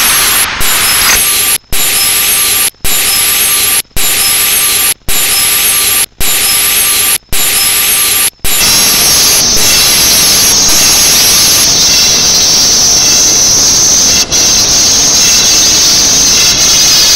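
Loud, harsh noise from a scrambled satellite TV channel's audio. For about the first eight seconds it cuts out in short gaps roughly once a second, then it settles into a steady, bright hiss.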